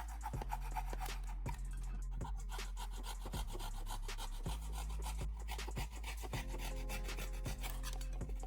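Rapid rasping, scraping strokes, as of abrading plastic by hand, over background music with a steady low bass line and a melody that comes in about two-thirds of the way through.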